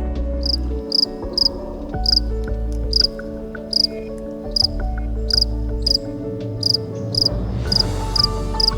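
Short, high insect chirps repeating about twice a second over background music with a slow bass line.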